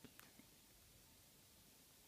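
Near silence: faint room hiss, with a few faint ticks in the first half second.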